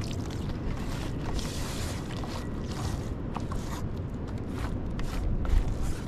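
A hand smearing wet grey paste across a large dimpled metal tray: many short, wet scraping and rubbing strokes, over a low rumble that swells near the end.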